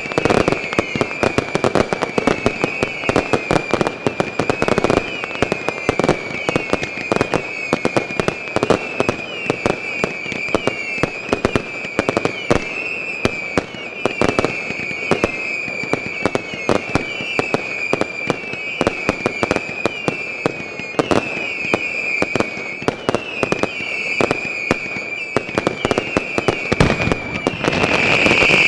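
Professional fireworks display: a rapid, unbroken string of bangs and crackles from bursting shells over a continuous high, wavering whistle. It grows louder near the end as the barrage thickens.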